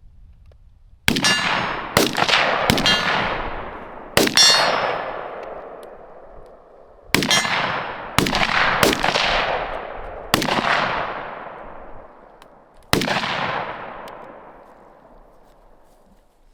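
Nine gunshots, unevenly spaced over about twelve seconds, each with a long echoing tail. The first few carry a metallic ring.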